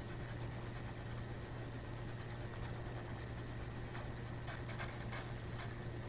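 Low steady electrical hum and hiss of a quiet field recording. A short patch of faint crackling comes about four to five and a half seconds in.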